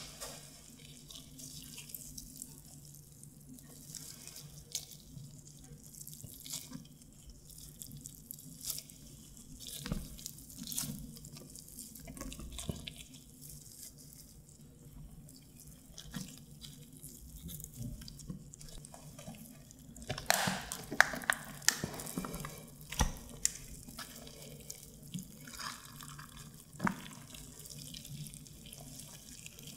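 Gloved hands tearing apart and deboning whole grilled fish: soft, wet crackling and clicking of the flesh and skin with a rustle of plastic gloves. It gets louder and busier about twenty seconds in.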